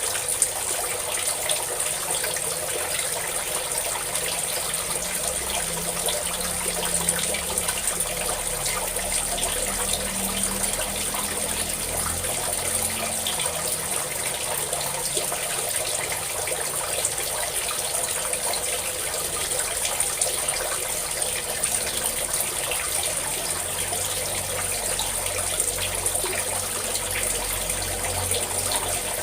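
A stream of water pouring and splashing steadily and without a break.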